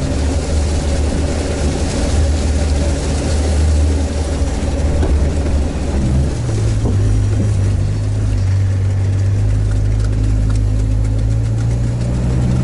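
Amphibious all-terrain vehicle's engine running steadily, heard from inside the cabin while the vehicle is afloat. Its note steps up a little about six and a half seconds in. A rushing hiss in the first half fades away.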